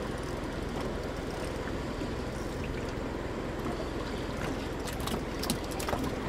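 A boat's engine hums low and steady under the wash of sea water. A few sharp clicks come near the end.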